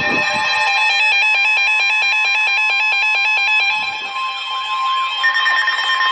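Several electronic weather-alert tones sounding at once: overlapping beeping, warbling and stepped two-tone alarm patterns, with a steady tone growing stronger about four seconds in. They announce a new severe thunderstorm warning coming over the weather radio.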